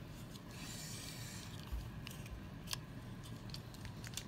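Faint handling noise: a soft rustle about half a second in, then a few light clicks as the toys and the phone are moved about.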